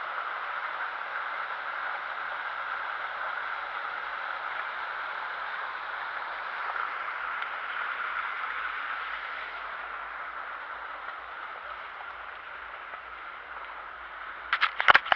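Steady rush of a mountain trout stream's running water, easing slightly after about ten seconds. Near the end, a quick run of sharp, loud knocks sounds before the audio cuts off.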